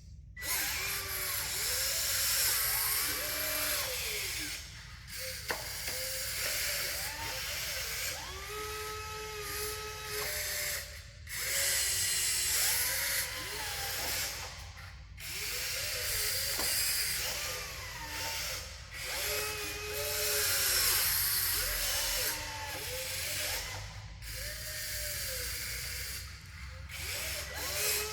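Small electric motors and gearboxes of radio-controlled construction models whining, the pitch rising and falling as they speed up and slow down, in short runs with brief pauses between them.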